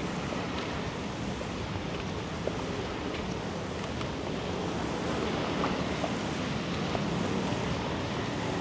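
Steady rain falling: a continuous hiss with scattered faint drop ticks.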